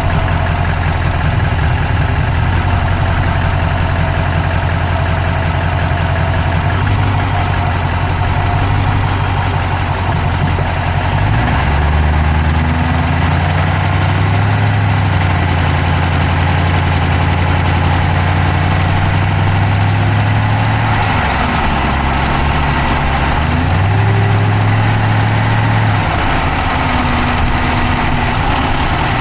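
Dodge Charger's Hemi V8 idling, heard from inside the engine bay, with a fast clicking that runs with the engine. The idle note shifts a little a few times.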